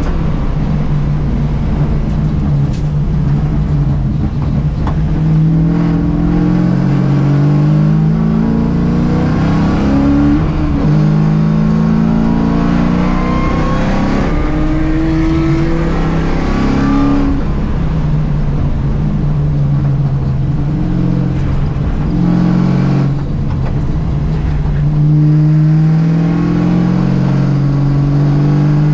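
Mustang race car engine heard from inside the cockpit at full racing pace, its pitch repeatedly climbing and dropping back at each gear change through the lap.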